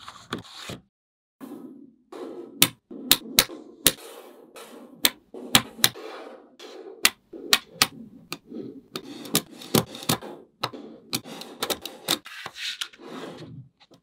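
Small magnetic balls clicking and snapping together as they are handled and pressed into place: a rapid, irregular run of sharp clicks with soft rattling between them, broken by a brief silence about a second in.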